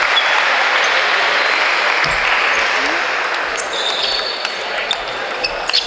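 Audience applause dying away over the first three seconds, then a series of sharp clicks from a celluloid table tennis ball bouncing on the table.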